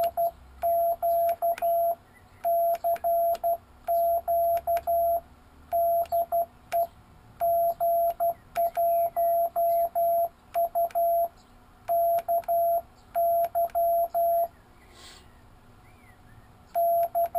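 Morse code (CW) hand-sent with an iambic paddle key: the Rockmite 40 transmitter's signal, received on a Kenwood R1000, as a clean steady mid-pitched tone keyed into dots and dashes in groups, described as a lovely tone. Faint clicks come with the keying, and a pause of about two seconds near the end comes before one last short group.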